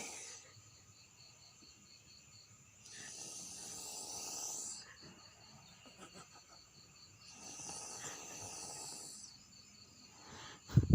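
A sleeping person snoring: two long snores about four seconds apart, over a steady, high, pulsing chirp in the background. A short, louder sound comes near the end.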